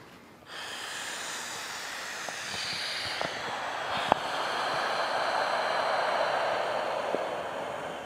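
A man blowing by mouth through the air-mattress-style valve of a LuminAID inflatable solar lantern. It is one long, steady hiss of breath as the lantern's plastic body fills with air, with a small tick about four seconds in.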